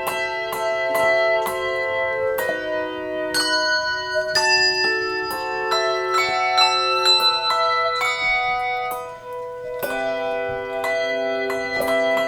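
Handbell choir playing: bells struck in turn, several notes ringing together and dying away, with new notes coming about every half second.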